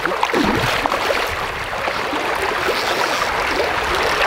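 River water rushing steadily, a dense even hiss of flowing current.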